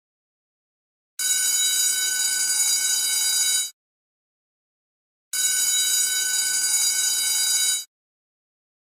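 Electric school bell ringing twice, each ring about two and a half seconds of steady, high, metallic clanging that stops abruptly, with silence between the rings.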